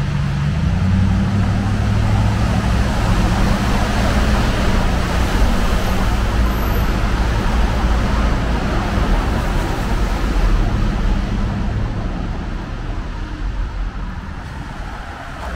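Road traffic passing on a wet roadway inside a concrete underpass: steady tyre and engine noise. A low engine hum is strong in the first half and fades out, and the noise eases off near the end.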